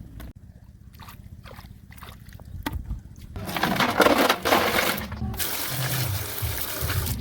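Water splashing and pouring, loudest for about two seconds in the middle, after a few faint clicks.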